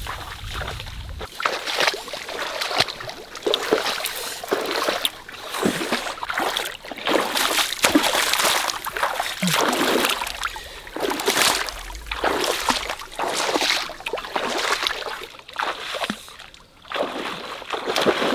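A person wading through shallow muddy water, splashing and sloshing with each stride in an uneven rhythm of about one surge a second.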